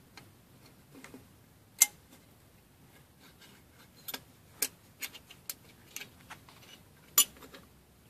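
Irregular sharp clicks and light clinks of small hard parts being handled during connecting rod bearing work: about a dozen, the loudest two about 2 seconds in and near the end.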